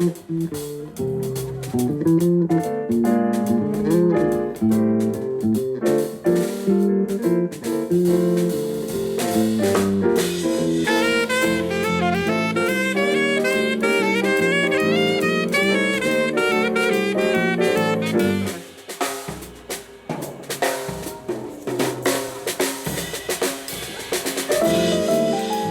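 A live band playing: drum kit with snare and bass drum under sustained chords and a fast melodic lead line in the middle of the passage. The music thins out briefly about twenty seconds in, then the band comes back in.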